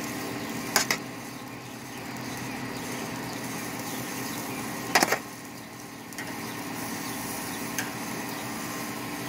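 Metal barbecue tongs clicking against chicken on a charcoal grill's grate, two short sharp clicks about a second in and about five seconds in, over a steady hiss with a low hum.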